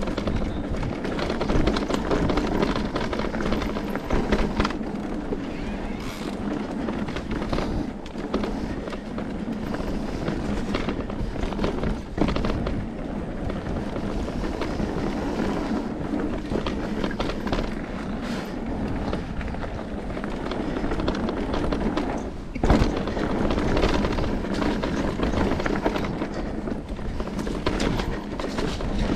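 Electric mountain bike rolling fast down a dirt forest trail: tyre noise on the earth, with the bike rattling and knocking over bumps the whole way, and one sharper knock about 23 seconds in.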